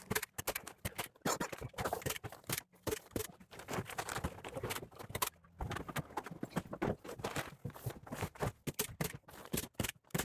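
Thin 3 mil plastic sheeting crinkling and rustling as it is handled and pulled across the wall studs, mixed with footsteps and knocks from stepping on and off a stepladder.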